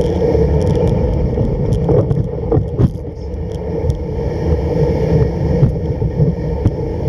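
Home-made kick sled's runners sliding over snow, a loud steady rushing scrape, with a few sharp knocks a couple of seconds in.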